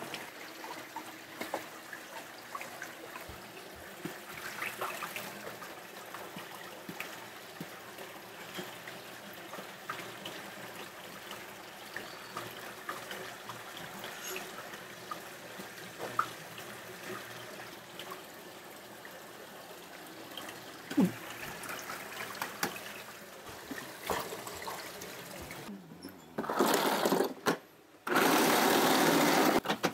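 A low trickle of running water with small clicks and knocks of kitchen work. About 26 seconds in, an electric ice shaver starts with a loud grinding rush, stops briefly, then runs again, shaving block ice.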